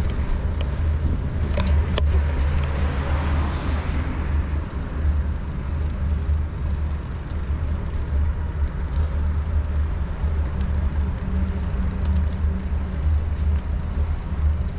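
Riding noise picked up by a bicycle's handlebar-mounted camera: a steady low rumble of wind and road noise, with a brighter hiss that swells and fades about two to four seconds in.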